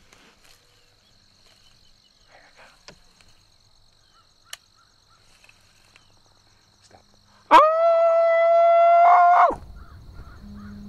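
A howl blown on a predator call to stop a running coyote: one loud, steady high note of about two seconds, starting sharply a few seconds before the end and wavering as it breaks off.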